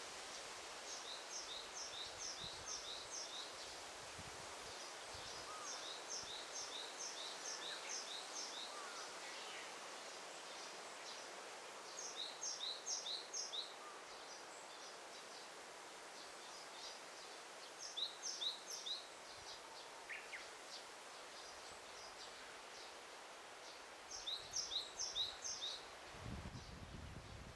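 A small songbird sings a short phrase of quick, high, evenly repeated notes, five times, every few seconds, over a steady forest background hiss. A low rumble comes in near the end.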